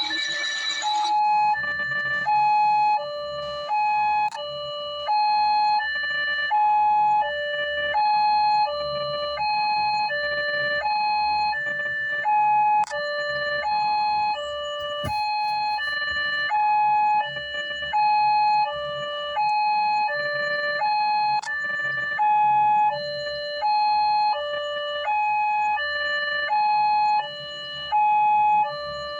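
Small electronic siren sounding a two-tone hi-lo call, switching steadily between a high and a low note, each held for under a second. It starts about a second in.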